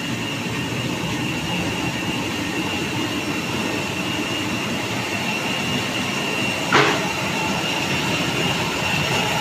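Stainless-steel fruit washing machine running: a steady mechanical din with water churning and a constant high whine. A short sharp sound about two-thirds of the way through.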